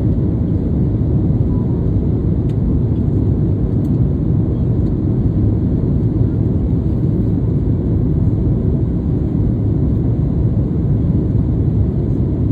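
A steady, loud low rumble with no distinct pitch, unchanging throughout.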